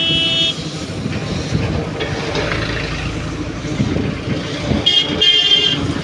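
Highway traffic passing, with the steady rumble of lorry engines and tyres and a vehicle horn honking: a blast that ends about half a second in, then a short toot and a longer blast near the end.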